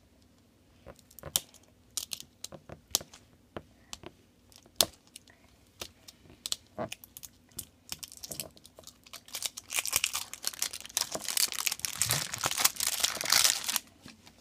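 Scattered light clicks and taps from a plastic surprise egg being handled. About eight seconds in, a thin printed plastic wrapper crinkles and tears continuously as it is peeled off the egg.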